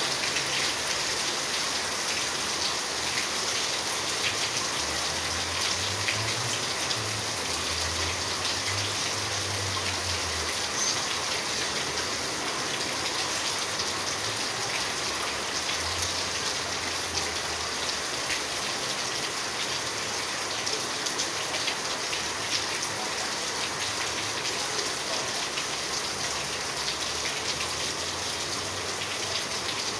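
Steady rain falling, a continuous hiss dense with the patter of individual drops. A low rumble rises under it for a few seconds in the first third and briefly again near the middle.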